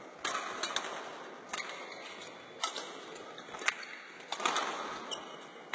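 Badminton rally: rackets striking a shuttlecock back and forth, sharp hits roughly once a second.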